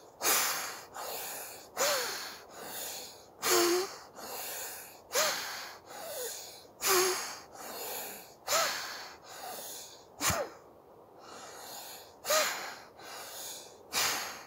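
Forceful alternate-nostril breathing (anulom vilom bhastrika): hard breaths forced through one nostril at a time, a loud, sharp breath alternating with a softer, longer one, about nine cycles at a steady rhythm.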